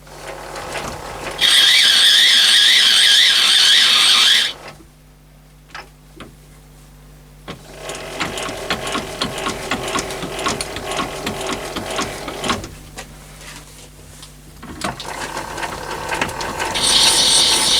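Myford lathe cutting an internal thread under power with the half nut engaged: the threading tool gives a loud high-pitched screech for about three seconds, then cuts off abruptly as the tool runs into the undercut. A stretch of rattling and clicking from the lathe's gear train follows mid-way, and the high screech of the next cutting pass starts again near the end.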